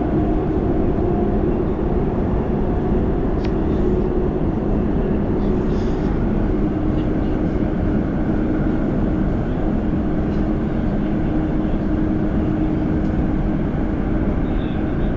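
Inside an Elizabeth Line Class 345 train running at speed through a tunnel: a steady rumble of wheels on rail under a constant low hum.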